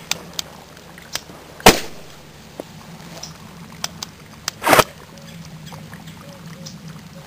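Sharp pops of HHO (hydrogen-oxygen) gas being ignited in flashback tests on an electrolyzer's secondary bubbler: loud pops about a second and a half in, near five seconds and at the very end, with smaller clicks between, over a steady low hum.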